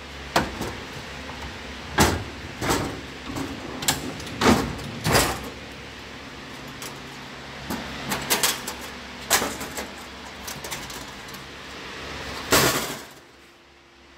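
About a dozen sharp knocks and clunks at irregular spacing over a steady low hum, with one of the loudest knocks near the end; the hum stops a second or so before the end.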